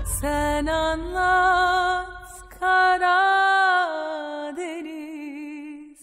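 A lone voice singing unaccompanied in slow, long-held notes with vibrato, sliding between pitches, with short breaths between phrases.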